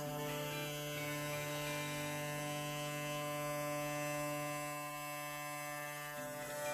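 Small hand-held electric machine, its broken switch just repaired, running with a steady hum. The pitch shifts slightly near the end.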